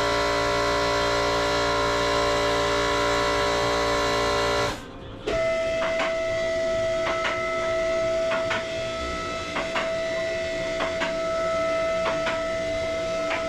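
Background music: held chords that cut off abruptly about five seconds in, then a single held high note over a regular ticking beat.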